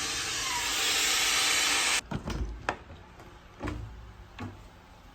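Air hissing into a home freeze dryer's vacuum chamber as the vacuum is released. The steady hiss stops abruptly about two seconds in as the chamber reaches normal pressure, followed by several light knocks and clicks.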